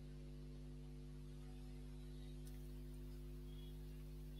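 Faint, steady electrical mains hum with a stack of even overtones, over light hiss; a faint click about halfway through.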